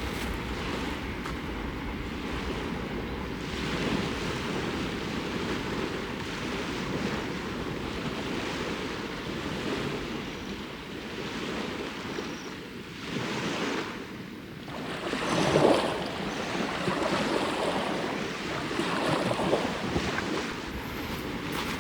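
Small waves washing onto a lakeshore in surges, the biggest two thirds of the way through, with wind buffeting the microphone.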